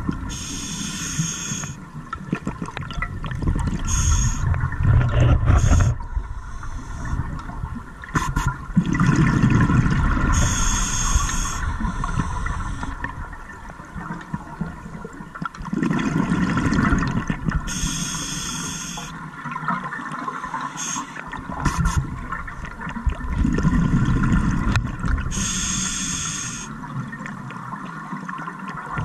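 Scuba diver breathing through a regulator underwater: hissing breaths and gurgling exhaled bubbles, in a slow cycle repeating about every seven or eight seconds.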